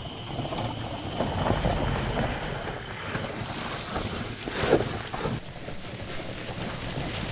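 Electric ATV driven by four hub motors, rolling over a leaf-covered dirt trail with no engine note: tyres crunching through dry leaves and soil. A splash just under five seconds in, as the wheels cross a muddy puddle, is the loudest moment. A faint steady high tone runs through the first three seconds.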